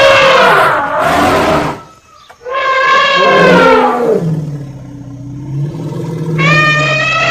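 Elephant trumpeting in loud, brassy calls: a harsh blast at the start, another trumpet about two and a half seconds in, a low rumble in the middle, and a further trumpet near the end.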